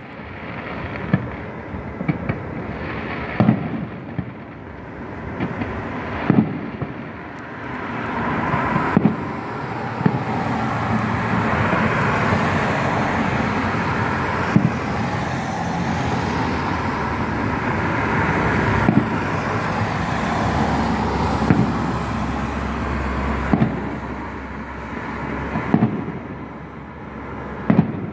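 Distant fireworks going off, a sharp bang every few seconds, some in quick pairs. Through the middle a steady rushing noise rises and fades, like passing traffic.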